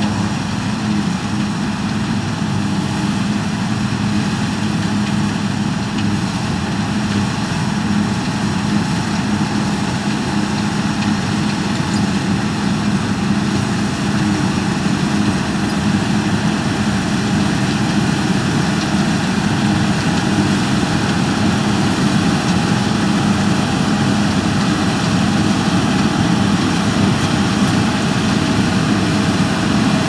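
New Holland TX32 combine harvester running steadily under load while cutting spring barley, its engine and threshing machinery giving a constant drone. It grows slightly louder as the machine draws closer.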